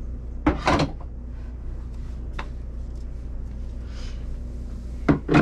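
Knocks and clunks of containers being put into a small kitchen cart's cupboard: a pair about half a second in, a lighter click in the middle and another loud pair near the end.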